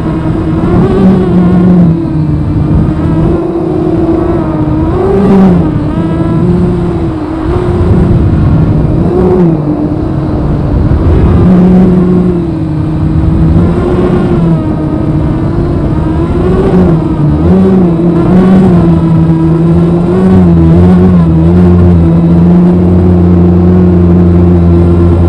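250-size FPV quadcopter's motors and propellers whining, heard from the drone's onboard camera. The pitch wavers up and down with the throttle during slow, low flight, and steadies near the end.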